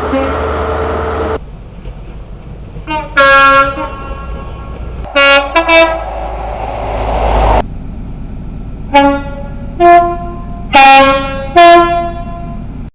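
British train horns sounding in a series of short blasts that alternate between a lower and a higher note, the classic two-tone horn, with a cluster of quick toots in the middle and four separate blasts near the end. A low rumble of train running noise lies under and between the blasts.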